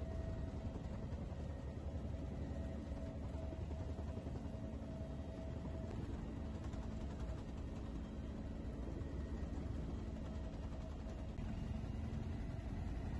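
Helicopter turbine and rotor noise heard from inside the cabin: a steady low rumble with a constant whine on top.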